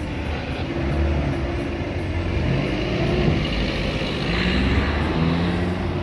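Road traffic on a busy street: motor vehicle engines running steadily, with a low rumble that swells a little about four seconds in.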